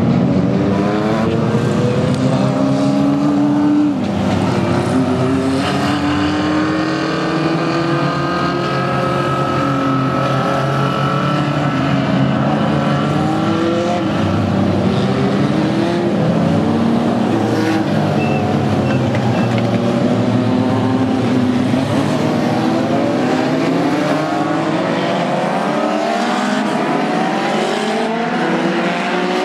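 Several Legends race cars lapping together, their small four-cylinder Yamaha motorcycle engines revving up and down in overlapping pitches that keep rising and falling as the cars go round.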